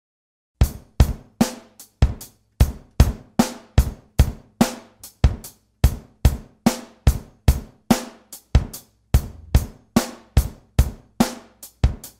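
A drum kit playing a steady beat on its own, kick, snare and hi-hat, with strokes at an even pace. It comes in about half a second in, after silence, like the drum intro of a song.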